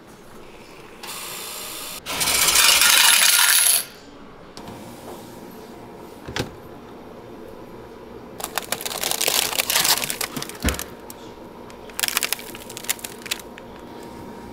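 Banknote exchange machine whirring briefly, then coins clattering out into its tray for nearly two seconds. Later come knocks from the freezer's sliding glass lid and two spells of plastic ice cream wrappers crinkling as packets are handled.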